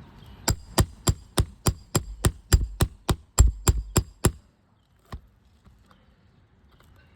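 Roofing hammer striking a metal nail-removal tool (roof snake or nail puller) to work out a roofing nail under an asphalt shingle: about fourteen quick, ringing metal strikes at a steady pace of roughly three a second, then a single strike about a second later.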